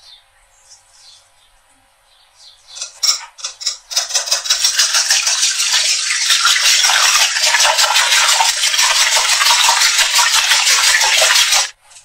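Wire whisk beating raw eggs in a stainless steel bowl: a fast, steady clatter of the wires against the metal that starts about four seconds in after a few light clinks and stops abruptly near the end.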